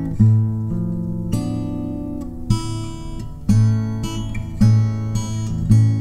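Background music: an acoustic guitar strumming chords, about one strum a second.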